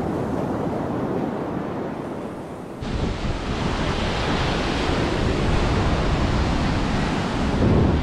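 Ocean surf washing on a beach, with wind buffeting the microphone; the low wind rumble gets heavier suddenly about three seconds in.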